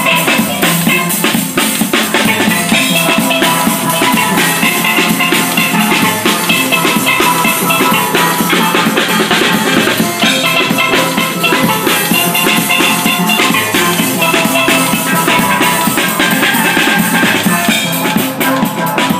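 Steel band playing live: steel pans ringing out quick runs of struck notes over a drum beat, steady and loud.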